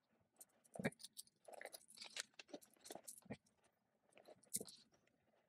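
Faint rustling, crinkling and light knocking of small items being packed into a canvas tote bag, with a louder knock about a second in and another near the end.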